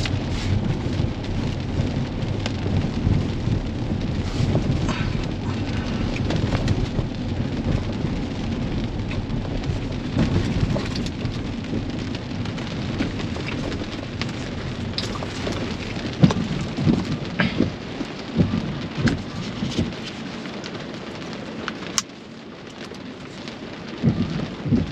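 Rain pattering on a Tesla Model X's roof and windshield, heard inside the cabin over the low rumble of tyres on wet road. Near the end the rumble dies away as the car comes to a stop, there is one sharp click, and the scattered drop ticks stand out.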